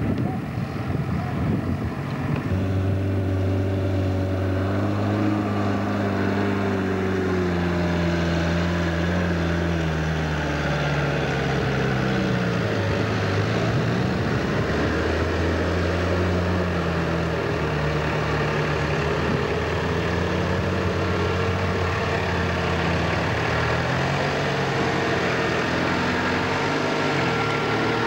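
Off-road 4x4 engine running steadily, its pitch sinking towards the middle and then rising again as the revs change.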